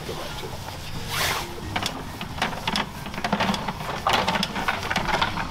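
Push cable of a Milwaukee sewer camera being worked by hand through a cleanout, with the reel and cable giving irregular scraping and clicking sounds.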